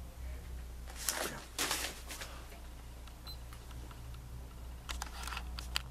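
Handling noise from a hand reaching to the webcam: soft rustles of movement, then a quick run of sharp clicks near the end, over a steady low room hum.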